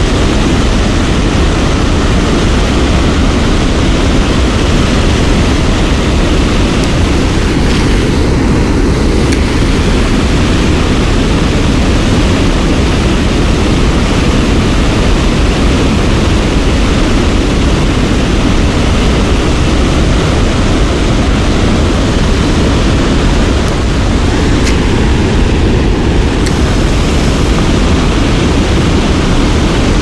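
Loud, steady rush of river water pouring over a low dam's spillway.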